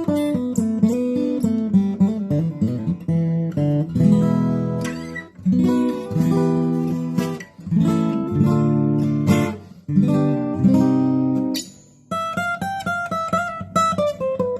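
1970s Aria 9290 J-200-style acoustic guitar played: ringing chords mixed with picked notes. A short pause comes just before the end, followed by a run of single picked notes stepping downward.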